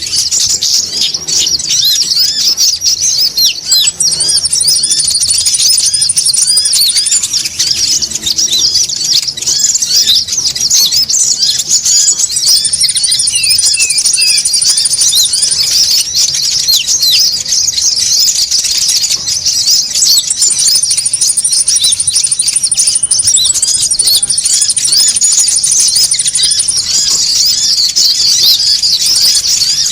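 Dense, busy chattering of several konin birds (a bird-trapping lure call): rapid overlapping high chirps with no pause. Thin, high, even trills join in for a few seconds at a time, three times.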